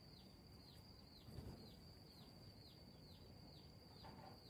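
Near silence, apart from a faint high-pitched chirping that dips in pitch about three times a second without a break. There is a brief soft low bump about a second and a half in.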